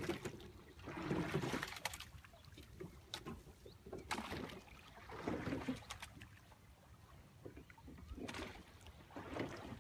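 Sculls of a four-person rowing boat working through calm water: splashes and knocks come with the strokes, a few seconds apart.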